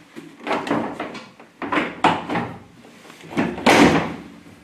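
Citroën C1 hatchback tailgate being swung down and handled, a series of clunks and knocks from the metal panel, the loudest about three and a half seconds in.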